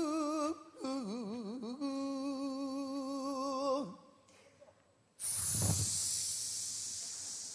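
A male pansori singer holding out the end of a sung phrase in long notes with a wide, slow vibrato, which swoops down and back up before ending about four seconds in. After a short pause comes a long breathy hiss that fades away.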